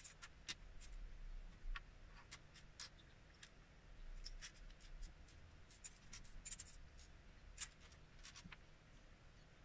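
Loose plastic LEGO pieces clicking and clattering lightly as hands pick through a pile of parts and set them down on the table: many small, sharp clicks at irregular moments.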